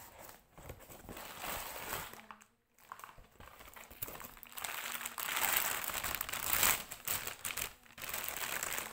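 Thin plastic packaging crinkling and rustling as a plastic shop bag is handled, pulled out and unfolded. There is a brief pause about two and a half seconds in, and the crinkling is louder and denser in the second half.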